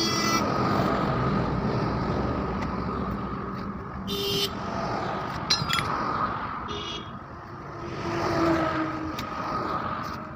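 Motor traffic running by, with a swell as a vehicle passes about eight seconds in. Short horn beeps sound twice, about four and seven seconds in, with a few sharp clicks between them.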